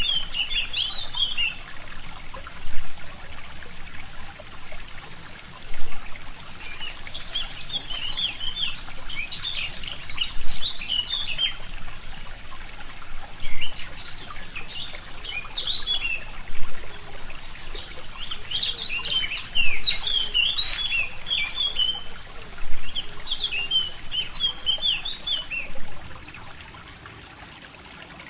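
Songbirds singing in several short bursts of quick, high chirping over the steady trickle of a forest stream. The water sound drops in level near the end.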